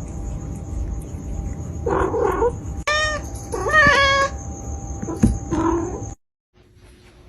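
Domestic cat meowing several times in drawn-out, wavering calls over a steady background hum with a thin high tone. The sound cuts off suddenly about six seconds in.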